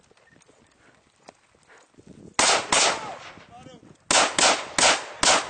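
Small-arms gunfire in a live-fire drill: about two seconds of low background, then two sharp shots close together, and after a pause of a second or so a steady string of four shots roughly a third of a second apart.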